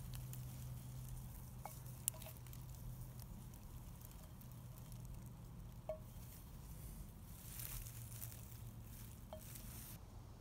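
Wild raspberries being picked by hand into an enamel camp mug: faint rustling of leaves and stems, with a few light clinks on the mug, the clearest about six seconds in. A patch of louder rustling comes near the end.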